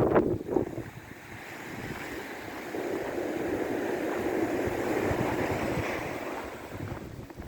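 Sea surf washing onto the shore in a blizzard wind, with wind buffeting the phone's microphone. The rush of noise builds from about a second in and dies away near the end.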